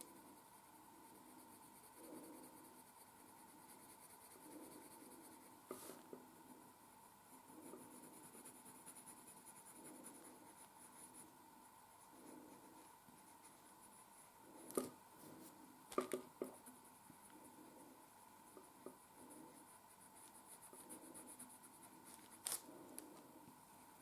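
Faint, soft scratching of a coloured pencil on paper as colour is laid into the drawing, with a few brief clicks.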